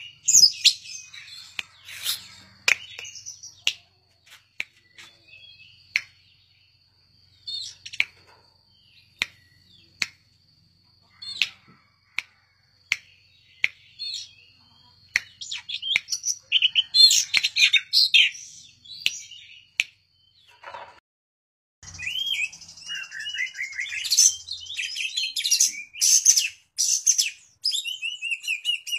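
Caged Oriental magpie-robin (kacer) singing a varied song of short high whistled and chattering phrases mixed with sharp clicks, sparse with pauses at first. About two-thirds of the way in it becomes a dense, rapid, unbroken run of phrases, the kind of 'full isian' song packed with imitated phrases that keepers train kacer for.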